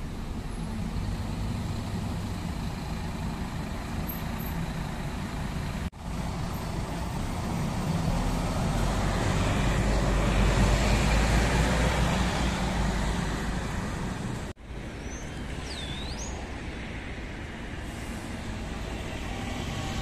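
City bus engine running as the bus pulls away and passes close by, its low rumble swelling to a peak about halfway through and then fading, over steady street traffic. The sound drops out abruptly twice, at cuts in the recording.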